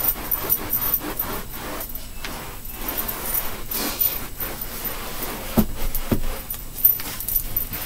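Scrubbing at a stain in a carpet: irregular rubbing strokes, with two knocks about five and a half and six seconds in.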